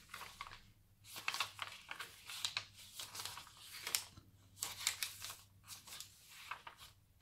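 Paper pages of a handmade junk journal being turned and a flip-out page unfolded: irregular rustles and crinkles of paper, starting about a second in.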